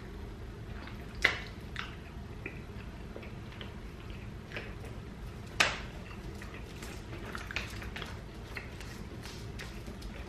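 Close-up chewing and lip smacking while eating chicken drumstick meat: soft wet mouth clicks throughout, with two sharper, louder clicks, one about a second in and one a little past halfway.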